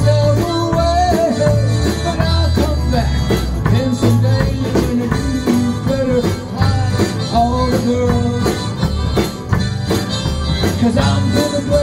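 Harmonica solo over a live band, its melody bending and wailing above guitar and drums keeping a steady beat, with a tambourine shaking along.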